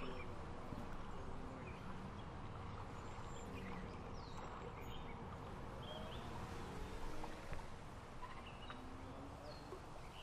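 Faint outdoor ambience: scattered short bird chirps over a steady hiss.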